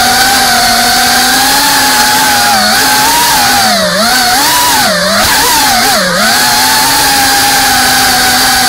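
FPV racing quadcopter's electric motors and propellers buzzing loudly and steadily, the pitch dipping briefly three times around the middle as the throttle is eased and brought back up.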